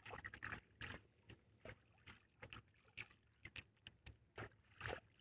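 Near silence, broken by faint, irregular clicks and rustles.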